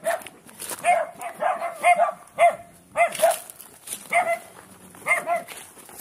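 Dog barking repeatedly, short barks coming about once or twice a second with a couple of brief pauses.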